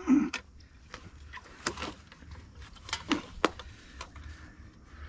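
A handful of sharp clicks and light knocks from an old small-engine generator being handled and turned over by hand, most of them in the first three and a half seconds.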